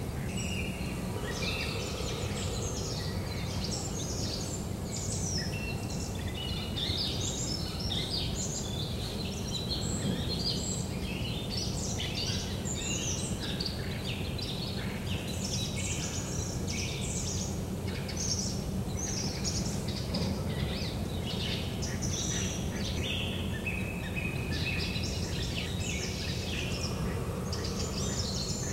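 Small songbirds chirping and singing continuously in a busy, overlapping chorus, over a steady low background rumble.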